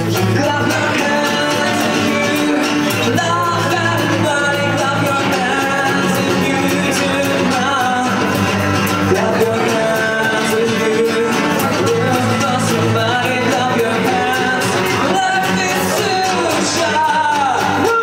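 A band playing a song: a singer's voice over guitar and other instruments, steady throughout.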